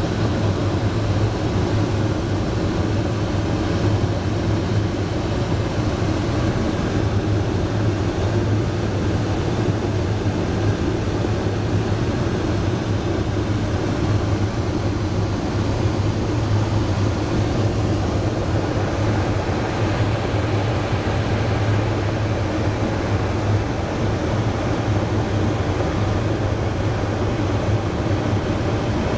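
Steady rush of air over an ultralight plane gliding with its engine shut off and propeller stopped, heard inside the cockpit, with a low steady drone beneath it.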